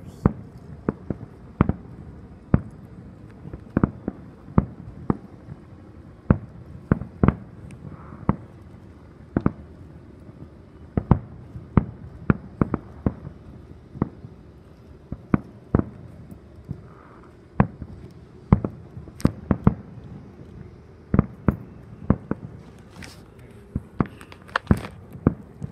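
Fireworks going off: a long run of sharp bangs at uneven intervals, about two a second.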